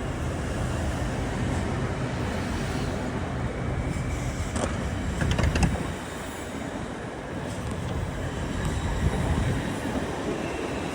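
Train running by with a steady rumble, a few sharp clicks and knocks about halfway through.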